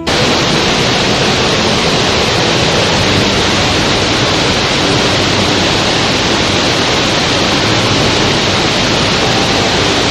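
Waterfall: a loud, steady rush of falling water that cuts in suddenly, with no rise and fall of waves.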